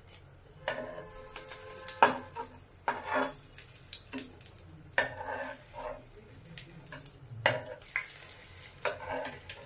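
Scattered clicks and knocks with wet, splashy noise: kitchen handling sounds during frying preparation.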